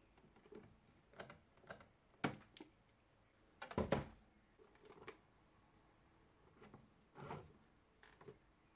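Faint plastic clicks and knocks from handling a Bambu Lab AMS filament unit: a printed clip is pushed onto a filament feeder and a filament spool is set into its slot. There are about a dozen scattered taps, with the loudest cluster about four seconds in.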